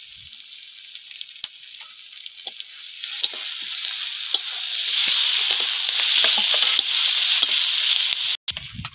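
Chopped onion, garlic and slit green chillies sizzling in hot mustard oil in a metal wok, stirred with a metal spatula that clicks and scrapes against the pan. The sizzle grows louder about halfway through and cuts off abruptly shortly before the end.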